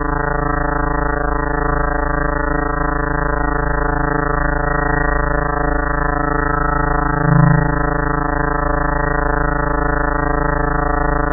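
A steady synthesized drone: a low, buzzy chord of many stacked tones held without change. There is a short low swell and a faint click about seven and a half seconds in.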